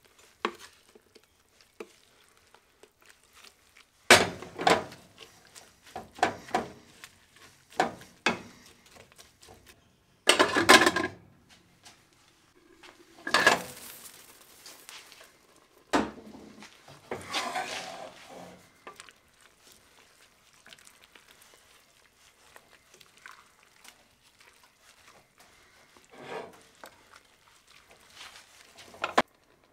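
Irregular knocks and short bouts of clatter from hard objects being handled, with quiet gaps between them.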